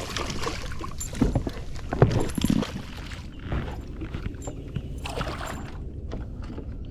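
Water splashing in short bursts and scattered knocks on a boat as a hooked bass is fought to the boat and landed.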